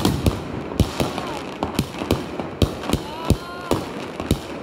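Fireworks and firecrackers going off all around: sharp bangs at irregular intervals, about three a second, some louder and nearer than others.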